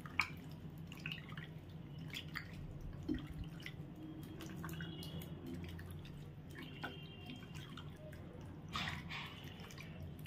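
A hand squishing and turning raw Bombay duck fish pieces in an oily spice marinade in a bowl: faint, irregular wet squelches and small clicks, over a low steady hum.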